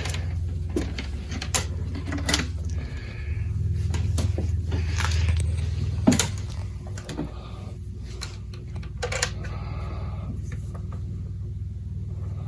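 Scattered clicks and small knocks of an MP3 player and its cable being handled and plugged in, over a steady low hum.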